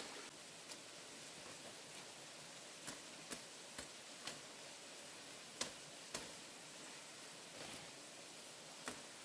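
A quiet, steady hiss with about eight scattered sharp clicks or knocks; the loudest comes a little past halfway.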